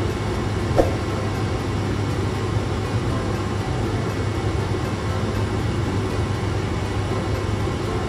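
Home jacuzzi's pump running steadily, its jets churning the bathwater, with a constant low hum under an even rushing noise. A short knock about a second in.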